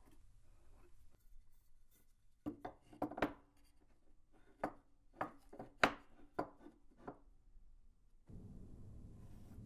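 Hardwood block knocking against a wooden workbench as it is picked up, turned and set down: about a dozen sharp, irregular knocks over some five seconds. Near the end a steady low noise comes in.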